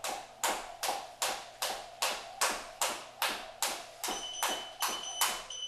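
Jump rope skipping on a hardwood floor: a sharp slap with each turn, about two and a half a second, steady and even. From about four seconds in, an interval timer beeps in short high-pitched pulses, marking the end of the work interval.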